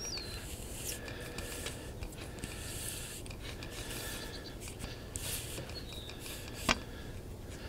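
Faint metal-on-metal rubbing and scraping as the sections of a 17-foot stainless steel telescoping whip antenna are slid out by hand, with one sharp click near the end.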